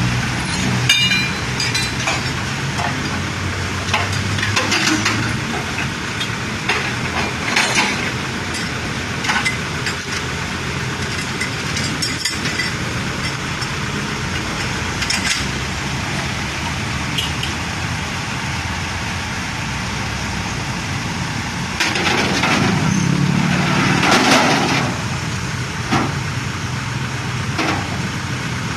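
Street traffic and running engines, with scattered metal clinks and knocks from tow chains being handled on the steel bed of a flatbed tow truck. About three-quarters of the way through, a passing vehicle swells up loudly and fades.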